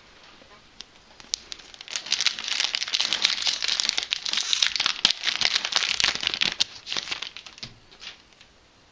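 Foil Yu-Gi-Oh booster pack being opened by hand, its wrapper crinkling in a dense crackle from about two seconds in until near the end.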